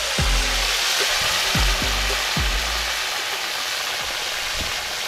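Fish pieces deep-frying in a pot of hot fat, a steady bubbling sizzle. For the first couple of seconds, electronic music with a deep bass and falling bass sweeps plays under it.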